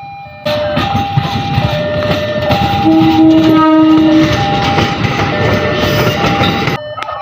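KRL electric commuter train sounding its horn for the semboyan 35 signal: two horn notes alternating over and over, with a lower horn note joining loudly around three seconds in, over the rumble and clatter of the train running on the rails. The sound starts abruptly about half a second in and changes abruptly to a quieter horn near the end.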